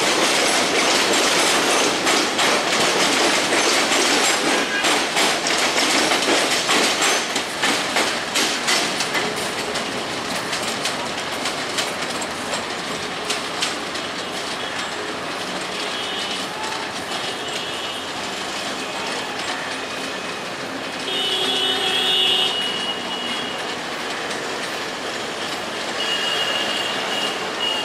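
Steel wheels of a train of PT Inka passenger coaches clattering over pointwork and rail joints, loud and fast at first, then easing after about nine seconds into a quieter steady rolling rumble. Brief high-pitched wheel squeals rise out of it three times in the second half as the coaches take the curves.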